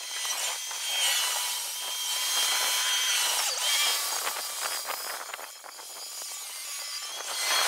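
Compact track loader clearing snow, its engine sped up with the time lapse into a high-pitched mechanical buzz with rapid clatter; it dips in loudness about three-quarters of the way in.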